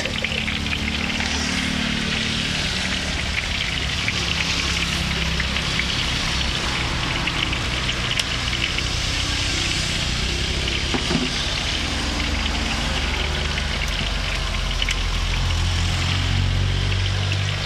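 Battered champedak deep-frying in hot oil, a steady sizzle with fine crackling, over a low engine rumble that grows louder near the end.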